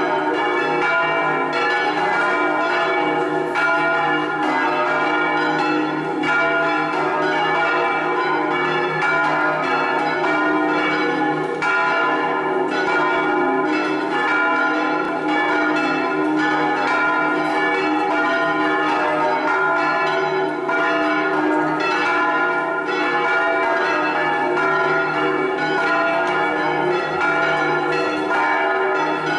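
Five swinging bronze church bells of the cathedral's six-bell peal in E-flat ringing together in a festive full peal ('distesa'), strokes overlapping continuously into a dense, unbroken clangour.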